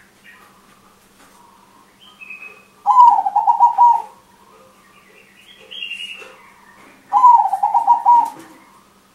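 Crossbred zebra dove (perkutut crossing) cooing. Two loud rolling phrases of quick staccato notes, each about a second long, one a few seconds in and one near the end. Fainter, higher chirps come between them.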